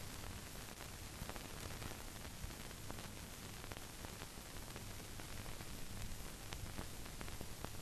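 Steady hiss of an old film soundtrack transfer with no recorded sound, a low mains-like hum underneath and scattered faint clicks and crackles.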